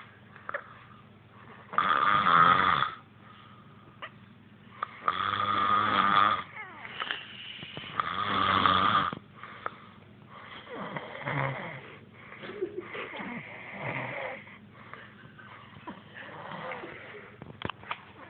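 A heavy-set person snoring in their sleep: three long, loud snores in the first nine seconds, then softer, shorter, irregular snores.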